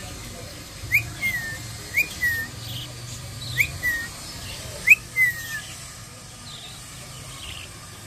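Parakeet giving a repeated whistled call, four times about a second or so apart. Each call is a sharp rising note followed by a falling slur. The calling stops a little past halfway.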